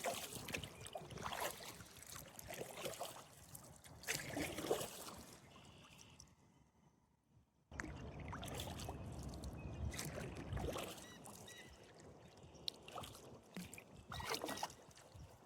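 Kayak paddle strokes dipping and splashing in river water, roughly a stroke every second or two, with a brief near-silent break about halfway through.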